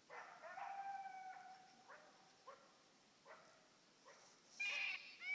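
Coyote calling: a howl that rises and holds for about a second and a half, followed by a few short, spaced barks, then louder, higher-pitched calls near the end.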